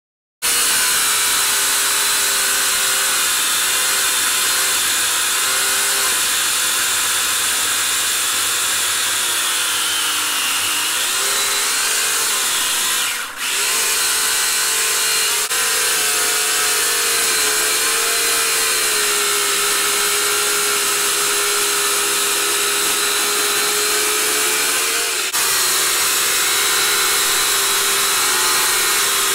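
Portland 14-inch electric chainsaw running and cutting into a log: a steady motor whine whose pitch sags and recovers as the chain bites into the wood. It starts abruptly just after the beginning and breaks off briefly a few times.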